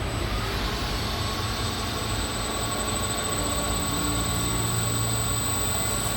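Steady mechanical running noise with a low hum and a faint high whine, unchanging throughout.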